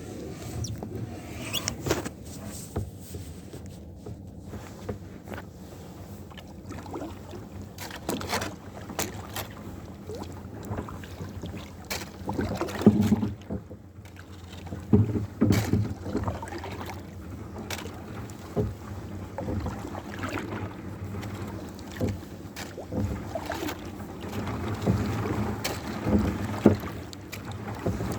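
Kayak on open water: the paddle dips and splashes and water knocks against the hull in irregular sharp strokes over a steady low rumble.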